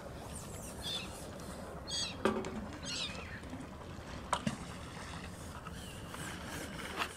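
Steady outdoor background rumble, with a few short high chirps about a second apart early on and several sharp knocks.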